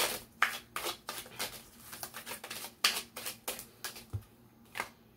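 A deck of oracle cards being shuffled by hand: a quick, irregular run of soft card slaps and flicks that stops shortly before the end.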